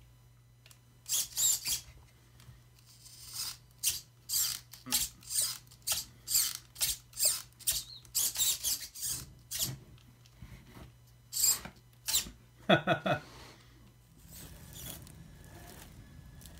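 Traxxas 2255 brushless servo on a TRX-4 Sport steering the front wheels back and forth in quick short moves, each a brief high-pitched whirr of the servo motor and gears, about two a second. Near the end comes a short, lower-pitched buzz, and at about 14 s it gives way to a faint steady hum.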